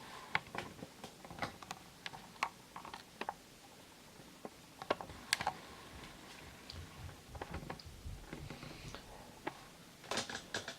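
Scattered light clicks and taps from objects being handled, coming at an irregular pace, with a quick cluster near the end.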